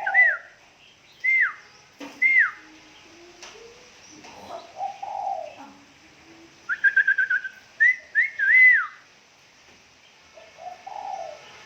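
A bird singing loud, clear whistled notes that rise and then drop, a few at a time, with a quick run of about seven short notes near the middle and softer, lower sliding notes in between.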